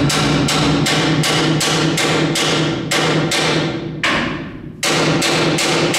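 A hammer driving square-tube steel tarp hoops into place on a tractor trailer: rapid, even blows, about two and a half a second, each with a metallic ring. The blows pause for under a second just after four seconds in, then resume.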